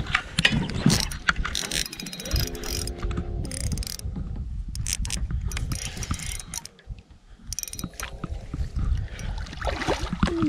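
Spinning reel being cranked while playing a hooked fish, its gears giving irregular ticks and clicks, with a short buzzing tone early on. Near the end the fish splashes at the landing net.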